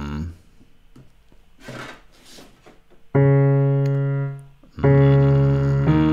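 Piano chords accompanying a vocal warm-up exercise: a held chord dies away, then after a quieter gap of about three seconds a new chord is struck, followed by another near the end.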